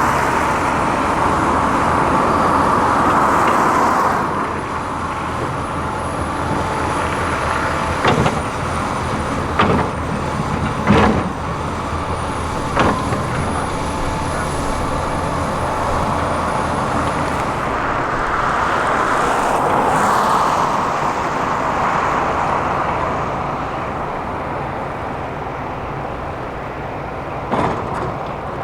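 Heavy diesel earthmoving machinery, excavators and a truck, running steadily, with a few sharp knocks that come and go.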